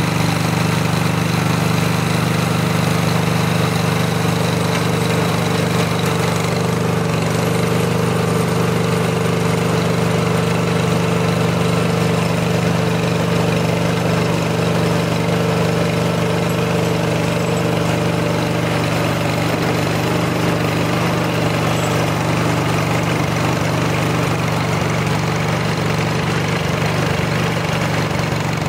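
Wheel Horse D-180 garden tractor's engine running steadily under load, driving a rear rototiller through its PTO clutch as the tines churn the soil.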